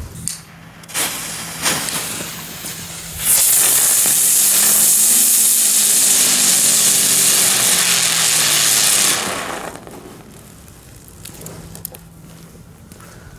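Category 1 firework going off: a couple of sharp spits as it catches, then a loud, steady high hiss for about six seconds while it throws out green and red sparks, falling away after about nine seconds as it burns out.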